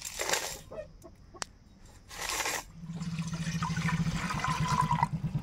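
Water poured into a steel bowl of dried red chillies: two short splashing gushes, then a steady pour from about three seconds in that stops just after five seconds. Under the pour a low, evenly pulsing engine starts up and keeps running.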